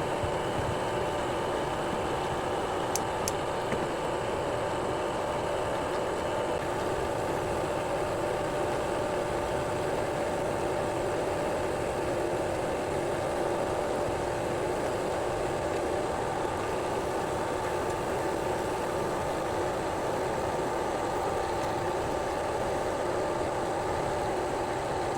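Electric drill motor running steadily at constant speed, a continuous hum with a steady whine.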